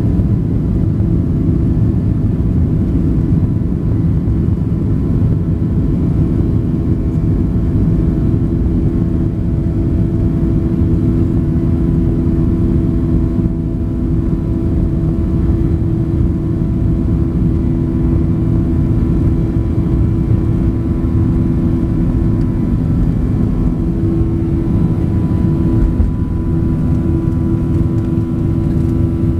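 Boeing 737-700's CFM56-7B turbofan engines at takeoff thrust, heard from inside the cabin: a loud, steady drone over a low rumble as the jet accelerates down the runway. A higher steady whine joins near the end.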